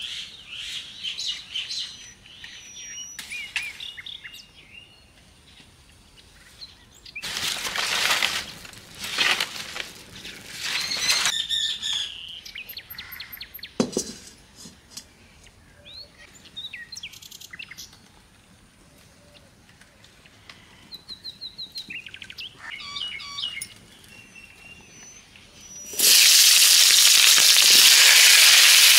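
Potatoes and green vegetable stalks tipped into hot oil in a kadai set off a sudden, loud, steady sizzle about 26 seconds in. Before that, small birds chirp, with several bursts of rustling from dry palm leaves and a single knock.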